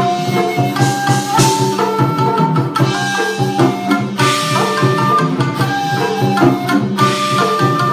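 A Japanese traditional-instrument band playing live: a shakuhachi carries the melody in long held notes over a steady, driving beat of taiko drums, with a cymbal crash every few seconds, while tsugaru shamisen and 25-string koto accompany.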